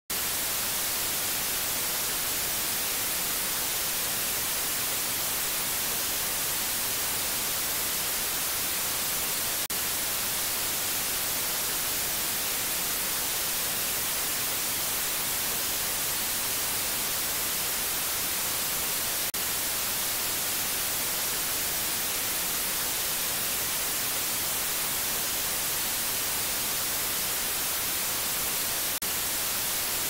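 Steady white noise: a constant, even hiss, strongest in the high frequencies, with a very short dip about every ten seconds.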